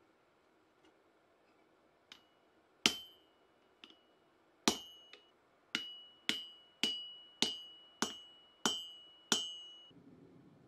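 Hammer blows on a handled punch driving a hole through red-hot steel on an anvil. About nine sharp, ringing metal strikes settle into a steady rhythm of roughly one every 0.6 s from about halfway, with a few lighter taps among the first blows.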